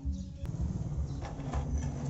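Small electric motors and plastic gearboxes of toy RC construction vehicles whirring. The sound thins out briefly at the start and comes back after a click.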